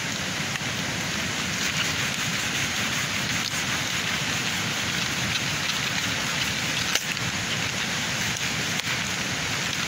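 A machete cutting cabbage heads from their stalks, heard as a couple of sharp knocks, the sharpest about two-thirds of the way in, over a steady rushing hiss.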